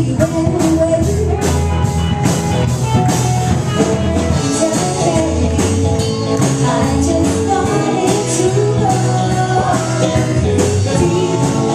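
Live rock band playing: a singer's voice over electric guitars and a drum kit keeping a steady beat.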